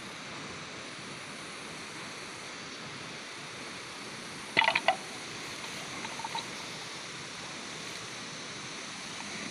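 Two young water buffalo butting heads over a steady outdoor hiss. About halfway through comes a quick run of four or five sharp clacks, typical of horns knocking together.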